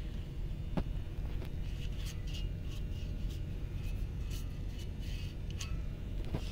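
Steady low hum of workshop background noise, with scattered faint clicks and ticks.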